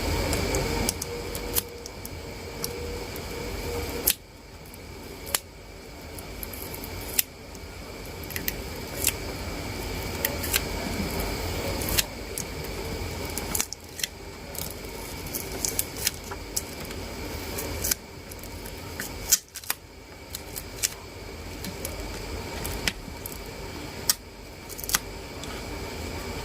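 Irregular sharp clicks and taps of small hand tools and plastic phone parts being worked during a smartphone battery replacement, over a steady background hum.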